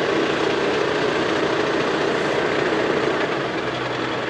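Tractor engine running steadily, a constant mechanical drone; a low steady hum joins in near the end.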